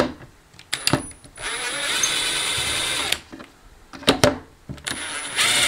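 Milwaukee Fuel cordless drill-driver backing screws out of a Bluetooth speaker's plastic back panel: one steady run of about two seconds, then a second run starting near the end, with clicks of the tool being handled and set on the screws in between.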